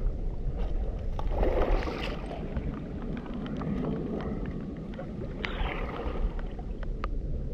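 Wind rumbling on the microphone with scattered sharp ticks, typical of rain landing close to the microphone, and two short rustling, crunching swells about a second in and again about five and a half seconds in.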